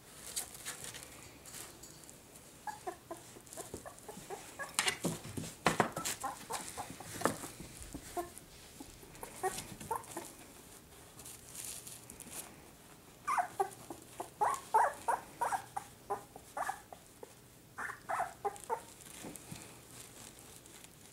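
Newborn cocker spaniel puppies squeaking and whimpering in short high chirps: scattered at first, then two quick runs of squeaks in the second half. There is crinkling of the puppy pads under them, loudest a few seconds in.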